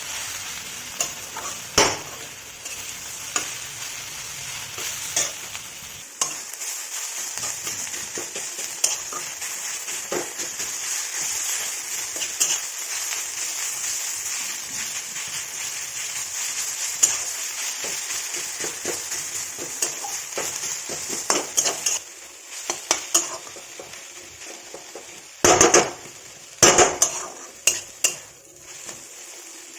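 Moringa leaves sizzling as they fry in a pan, stirred with a spatula that clicks and scrapes against the pan. Near the end the sizzle fades and the spatula knocks on the pan several times.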